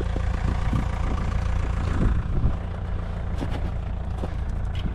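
A farm vehicle's engine idling with a steady, low, even hum.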